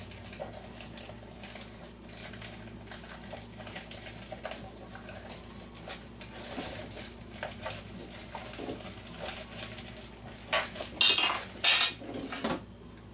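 Machined metal parts and hardware clinking as they are handled: light clicks and taps throughout, then a few louder, ringing metal clinks near the end.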